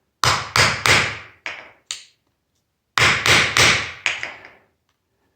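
Hammer blows on the metal body of a hydraulic door closer, in quick groups: three hard strikes and two lighter ones, a pause of about a second, then three more hard strikes and a lighter one.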